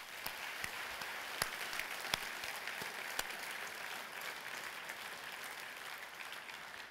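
A large audience applauding steadily, many hands clapping together, slowly fading toward the end.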